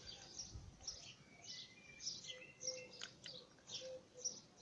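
Faint birdsong: a small bird giving short, high chirps about twice a second.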